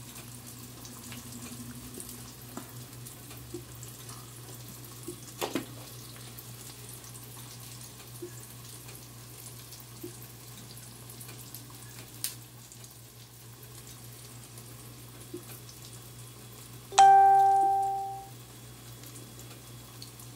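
A single loud electronic chime about 17 seconds in, one clear pitched tone that fades out over about a second and a half, over a steady low hum with a few light clicks.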